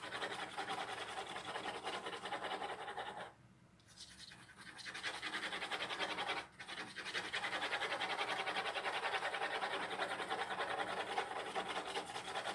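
Pencil scratching quickly back and forth on drawing paper, layering strokes of shading. It stops for about a second and a half a little over three seconds in, and breaks briefly again about six and a half seconds in.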